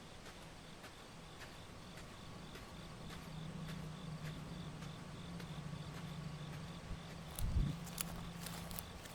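Insects chirping in a steady pulsing rhythm over a low hum that grows louder. Footsteps click on rock toward the end, with a heavy thump about seven and a half seconds in.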